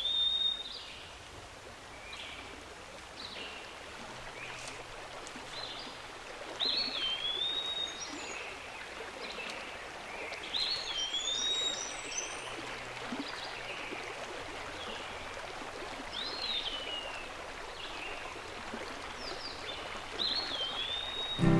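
Woodland ambience: a steady wash of running water under a bird repeating a short whistled call every few seconds, each call sliding down in pitch.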